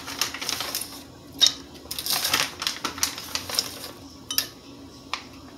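Plastic bag of frozen raspberries rustling, with scattered light clicks and taps as the berries are handled and dropped into the blender jar; the sharpest click comes about a second and a half in.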